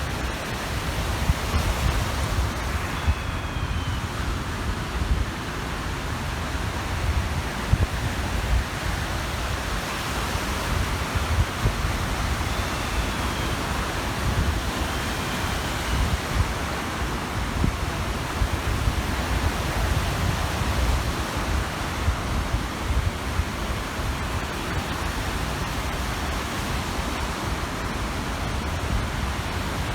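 Small waves washing on a reservoir shore, with wind gusting on the microphone as a low, uneven rumble. A few faint gull calls come in near the start and twice around the middle.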